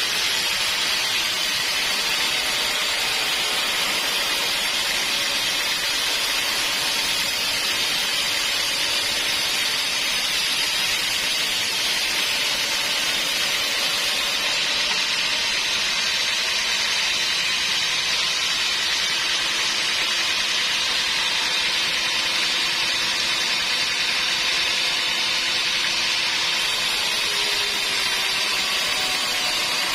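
Sawmill saw running steadily, an even machine noise without breaks or knocks.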